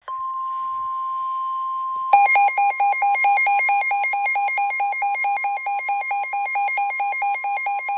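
Weather-radio emergency alert: a steady high warning alarm tone, joined about two seconds in by a louder electronic alarm pulsing about five times a second, announcing a severe thunderstorm warning.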